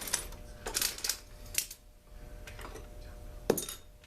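Irregular clicks and clinks of small metal parts and hand tools being handled, with a louder clack near the end.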